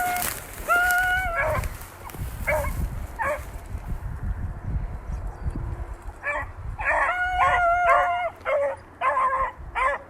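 Pack of beagles baying, the voice hounds give while running a rabbit's trail: one long drawn-out howl at the start, a couple of short chop barks, then several hounds giving tongue together in the second half.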